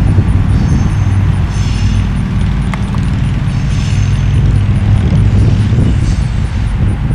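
Diesel locomotive's engine running with a steady low drone as the locomotive moves along the track.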